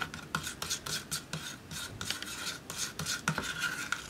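Metal palette knife scraping and stirring thick paint in a plastic cup, in repeated short rasping strokes a few times a second, easing off near the end.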